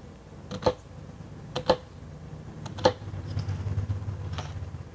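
Chef's knife chopping a sweet onion on a cutting board: a handful of sharp, irregularly spaced knocks as the blade strikes the board.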